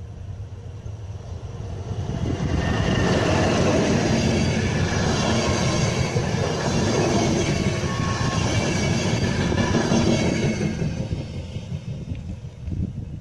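Passenger train hauled by an electric locomotive passing close by: the rumble of the wheels on the rails swells about two seconds in, stays loud while the coaches go past, and fades near the end.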